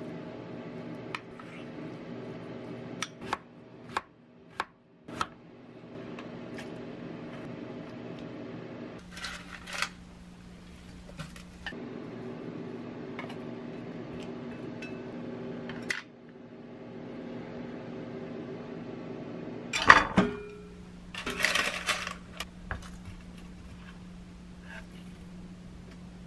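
Kitchen utensil clinks and taps: a metal spoon knocking against a ceramic bowl, and chopsticks tapping a glass bowl while mixing sliced onion, with the loudest a sharp knock about twenty seconds in. A steady low hum runs underneath.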